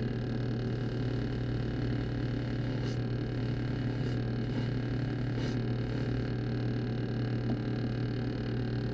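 Electric power tool motor running steadily with a constant hum while polishing a steel chisel toward a mirror finish, with a few faint ticks from about three to five and a half seconds in.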